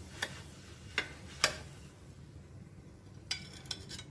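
Steel spatula clicking and scraping against a non-stick tawa as a cooked pancake is slid off it onto a plate: three sharp clicks in the first second and a half, then a quick run of clicks near the end.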